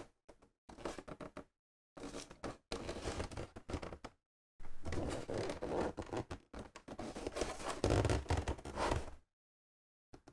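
A cardboard toy box being lifted and turned in the hands: several stretches of scraping and rubbing of fingers on cardboard, with short silent gaps between them and a few dull bumps.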